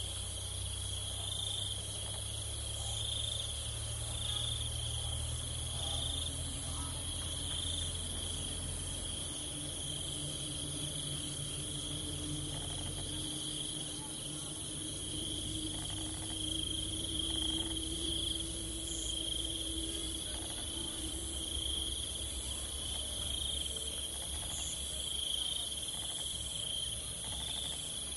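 Continuous chorus of crickets and other insects: a very high steady trill and a lower one that swells in pulses, over a low background rumble.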